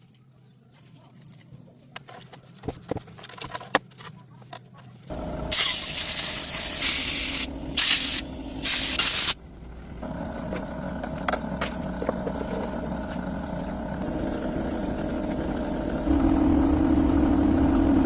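A few light clicks. Then a machine starts with a steady low hum, and loud hissing spray comes in three blasts, the longest about two seconds. The machine keeps running and steps up louder with a steady tone near the end.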